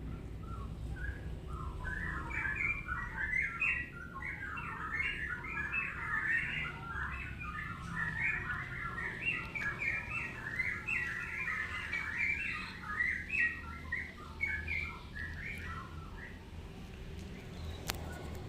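Birds chirping in a fast, dense chatter of short calls, starting about a second in and dying away near the end, over a steady low rumble.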